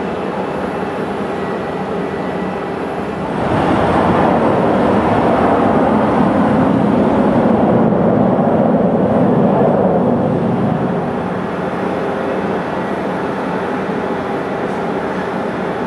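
Steady jet-turbine noise on an airport apron, swelling louder about three and a half seconds in and easing back about eleven seconds in.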